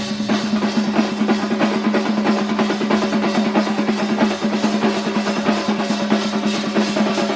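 Percussion troupe drumming: fast, dense, evenly driven drum strokes over a steady low held tone.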